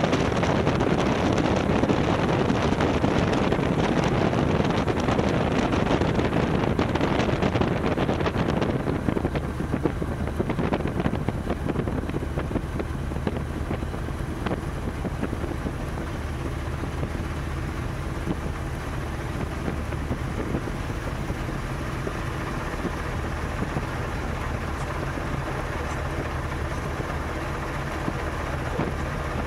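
Light aircraft's piston engine and propeller running at low power while taxiing, heard from inside the cockpit with wind rushing on the microphone. The rushing is louder for about the first nine seconds, then the sound settles to a quieter, steady engine hum.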